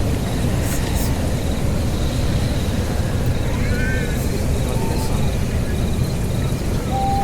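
Crickets chirping in a steady pulsing trill over a constant low rumble, with a few faint voice-like calls around the middle and near the end.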